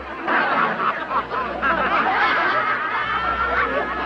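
A crowd of men and women laughing together, many voices overlapping, heard on an old black-and-white film's soundtrack.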